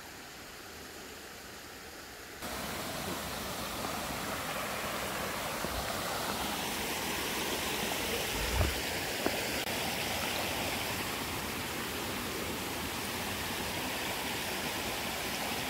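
Steady rush of running water, a stream flowing, that starts suddenly about two and a half seconds in over a fainter hiss. A brief low thump comes a little past the middle.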